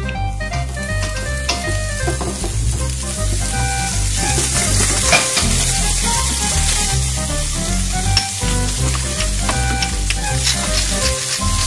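Steady frying sizzle, as of food in a hot pan, over background music with a repeating bass line and melody notes.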